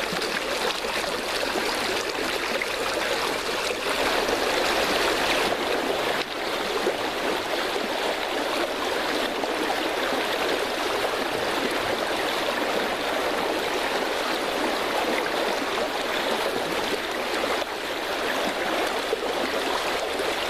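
Creek water flowing steadily, an even rushing sound with no break.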